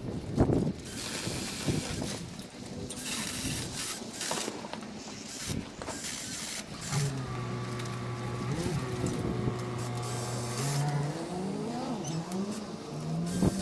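A few sharp knocks near the start, then a motor running at a steady pitch for about four seconds before its pitch rises and falls several times in quick sweeps.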